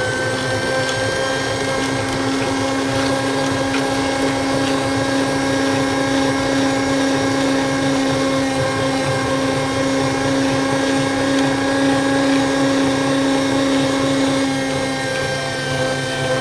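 Electric meat grinder's motor running with a steady hum as its auger grinds chocolate hazelnut wafer bars.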